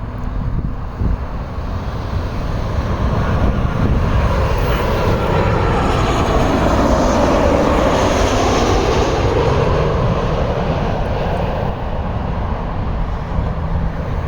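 Airliner's engines passing on landing approach, the noise swelling to its loudest about halfway through and then easing off, with a faint falling whine. Low wind rumble on the microphone underneath.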